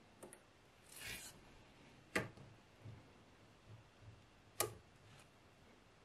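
Small magnetic balls clicking as they snap together: two sharp clicks, about two seconds in and again near the end, among a few fainter clicks, with a soft rustle about a second in.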